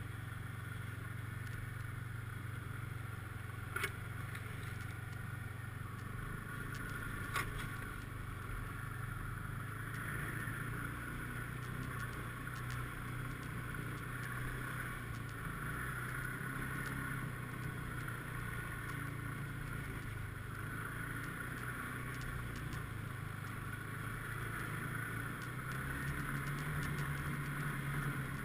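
Snowmobile engine running steadily under way, with two short sharp knocks about four and seven seconds in; the engine note rises a little near the end.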